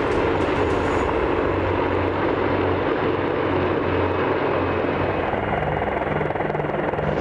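A formation of AH-64 Apache helicopters flying past, a steady mix of rotor and turbine engine noise with a low, even hum underneath.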